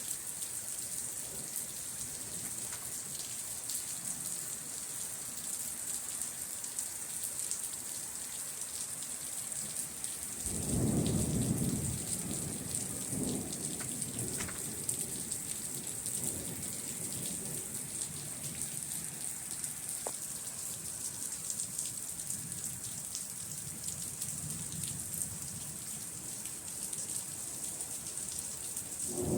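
Steady rain hissing throughout. About ten seconds in, a roll of thunder breaks and rumbles on for several seconds before fading back under the rain, and another thunderclap starts right at the end.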